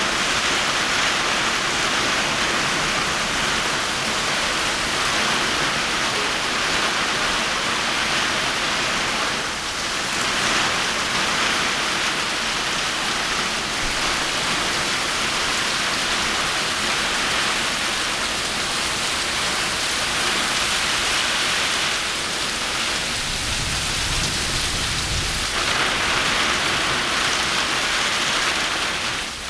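Rain falling steadily in a continuous hiss, with a low rumble for a couple of seconds about three quarters of the way through.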